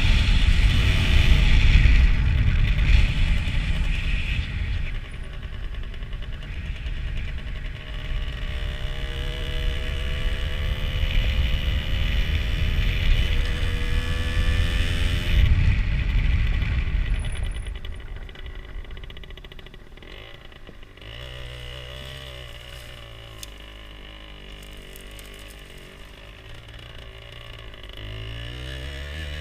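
Two-stroke 50cc motorcycle engine running under way, its pitch rising repeatedly as it revs up, with wind on the microphone. About two-thirds of the way in it drops to a much quieter, steady low hum.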